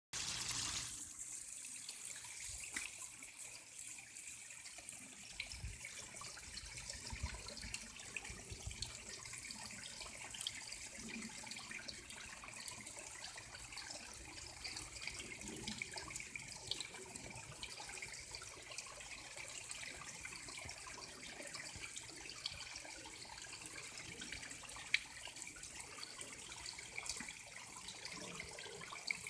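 Running water: a steady trickling hiss with small scattered splashes and drips.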